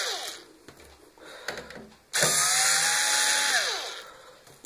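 Cordless electric screwdriver backing out small screws from a cooktop's circuit board. The motor whine winds down at the start. It then runs again steadily for about a second and a half and drops in pitch as it slows to a stop.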